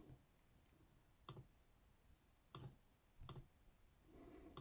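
A few faint, widely spaced computer mouse clicks against near silence.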